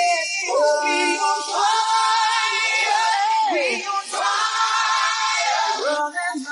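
Background music: held sung notes from several voices, with a gliding phrase around the middle.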